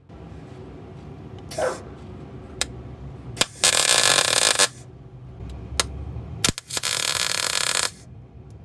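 MIG welder laying tack welds on a car sill panel: two bursts of arc crackle about a second long each, one near the middle and one toward the end, with a few short clicks between.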